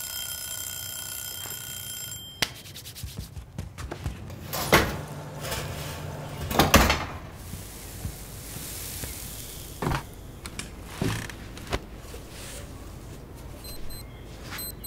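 Cartoon foley: a steady ringing tone that cuts off about two seconds in, then a scattering of soft thuds, swishes and cloth rustles.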